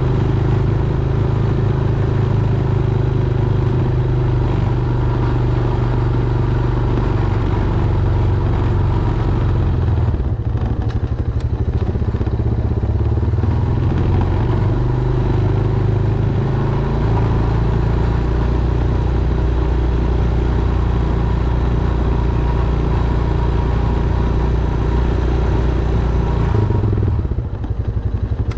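Honda Foreman ATV's single-cylinder engine running steadily while plowing snow, its pitch shifting a few times as the load changes, with a brief drop about ten seconds in and again near the end.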